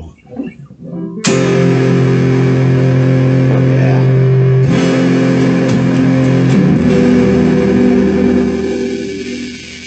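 Electric guitar on a Telecaster bridge pickup through a Sonicake Fazy Cream fuzz pedal with the fuzz turned all the way up, giving a crushed, bit-crusher-like fuzz. A few muted scratches, then a chord struck about a second in and held, struck again near the middle, and fading out near the end.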